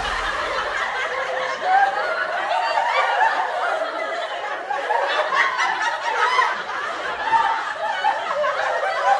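Sitcom laugh track: a studio audience laughing and chuckling together, many voices overlapping at a steady level.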